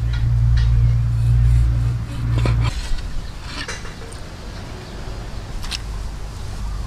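Knife cutting limes on a wooden chopping board, with a few sharp taps of the blade, over a low rumble that cuts off suddenly about two and a half seconds in.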